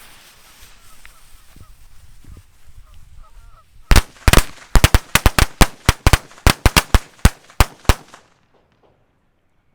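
Black Cat colour firecrackers: a fuse hisses for about four seconds, then about eighteen sharp bangs go off in an uneven rapid string lasting about four seconds and stop.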